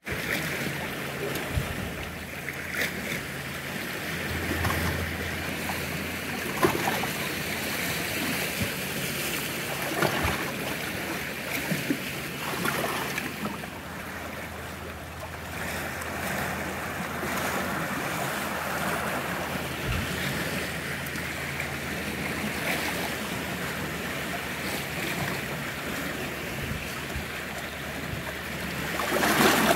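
Small waves lapping and splashing against shoreline rocks, with wind buffeting the microphone. There are a few sharper splashes along the way, and the sound grows louder near the end.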